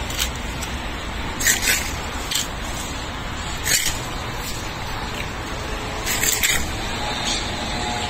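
Leaves and twigs rustling in several short swishes as a dry palm inflorescence is swung up into a white sapote tree's branches to knock down fruit, over a steady background rumble.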